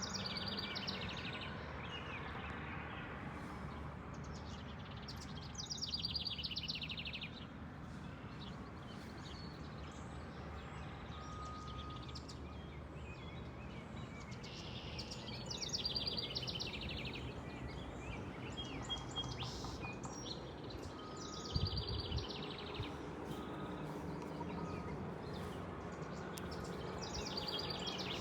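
Birds singing: a fast, trilled song phrase about a second and a half long recurs every five to ten seconds over a steady background hum of outdoor noise, with softer chirps in between. A brief low thump comes about three quarters of the way through.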